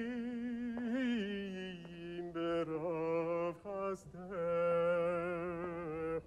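A man chanting a Jewish cantorial lament in a wavering, ornamented voice with heavy vibrato, broken by short breaths. A steady low note is held beneath it.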